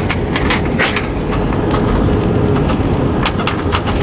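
Inside the cabin of an Airbus A320 with IAE V2500 engines, rolling on the ground after landing: a steady rumble and roar with one steady engine tone. Scattered sharp rattles and clicks run through it.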